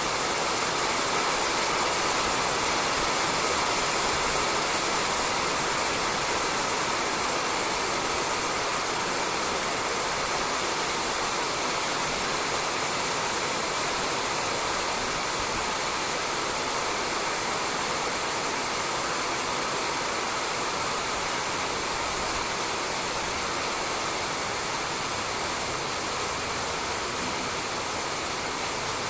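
Steady rain falling on a roof, a dense even hiss with no single drops standing out.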